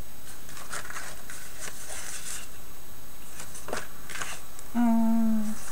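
Sheets of paper rustling and sliding as printed picture sheets are handled and pulled out of a card folder, in irregular short scrapes. Near the end a short hummed "mm" from a woman.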